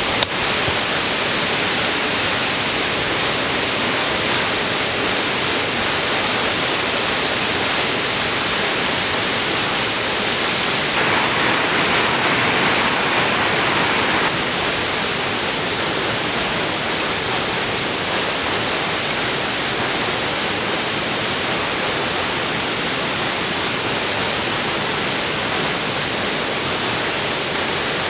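Waterfall rushing steadily. It grows a little louder and brighter for a few seconds around the middle.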